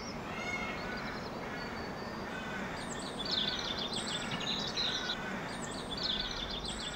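Small songbirds chirping and twittering over a steady outdoor hiss, the calls coming thicker from about three seconds in.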